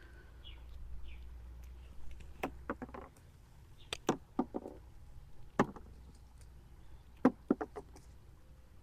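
Sharp knocks and clicks in small clusters, a few at a time, from peanut pods being picked off the plants and handled.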